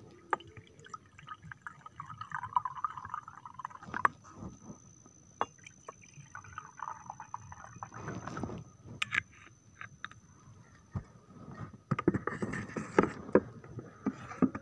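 Jamu herbal drink poured out in two pours, the first about a second in and the second about six seconds in. Sharp knocks and clinks come between them, and louder clattering follows near the end.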